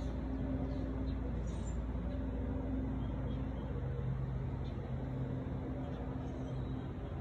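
A steady low mechanical hum with a few held droning tones that shift slightly in pitch, over a constant rumble.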